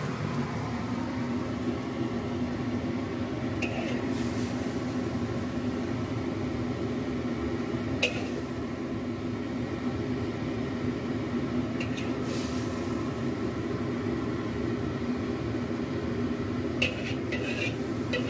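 A steady machine hum with a low droning tone, over which a metal spatula clicks and scrapes against a wok and a plate a handful of times, most in a quick cluster near the end, while stir-fried vegetables and egg are scooped out.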